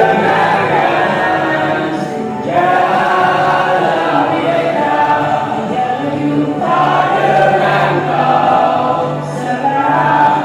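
Choir singing an Indonesian patriotic struggle song (lagu perjuangan) in chorus, in phrases a couple of seconds long.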